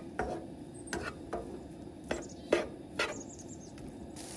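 Slotted spatula scraping and tapping in a frying pan as shredded hash browns and butter are stirred, about six strokes, over a low frying hiss. A brighter sizzle comes in near the end.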